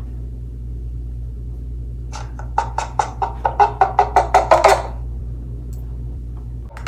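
Homemade chicken-in-a-cup noisemaker: a wet tissue pulled down the string in sharp jerks makes the string vibrate, and the plastic cup amplifies it into a quick run of about a dozen squawking clucks over nearly three seconds, starting about two seconds in. A steady low hum runs underneath.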